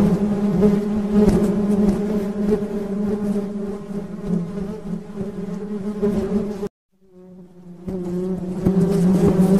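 Honeybees buzzing in a steady, droning hum. The sound cuts out abruptly for about a second about two-thirds of the way through, then fades back in.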